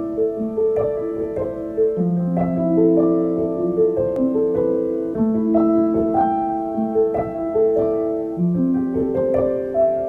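Background piano music: a calm melody of overlapping notes over held lower notes.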